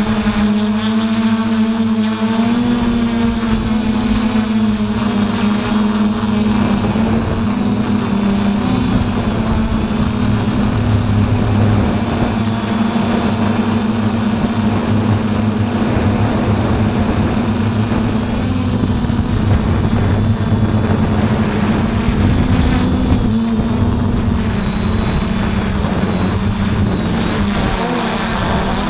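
DJI F450 Flamewheel quadcopter's electric motors and propellers humming steadily in flight, heard from the camera on board, over a rushing noise. The pitch of the hum shifts a little now and then as the throttle changes.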